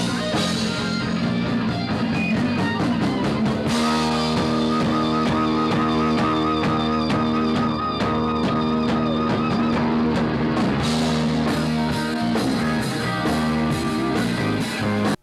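Rock band playing live, with distorted electric guitar chords and a drum kit keeping a steady beat. The music cuts off abruptly at the very end.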